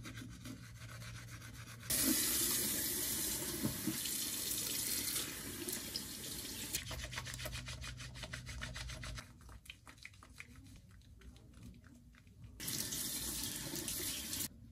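Bathroom sink tap running for about three seconds, then rapid splashing and rubbing of wet, lathered hands at the basin. The tap runs again briefly near the end and is shut off.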